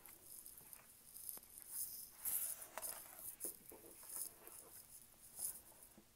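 Faint rustling of paper pages being turned by hand in a hardcover picture book, in short irregular patches with a few soft taps as the book is handled.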